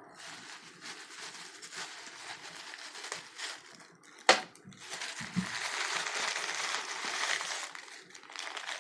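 Plastic packaging crinkling and rustling as a parcel is opened by hand. About four seconds in comes a sharp snap, followed by louder, steadier rustling.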